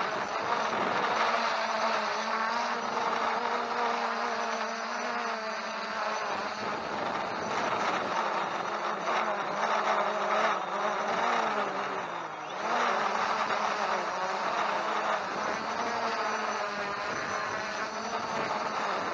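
Holystone HS700D quadcopter's motors and propellers whirring in flight, the pitch wavering up and down as the throttle changes, with a brief dip about twelve seconds in.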